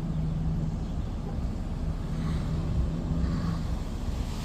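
Car running: a steady low engine and road hum with a constant low drone underneath.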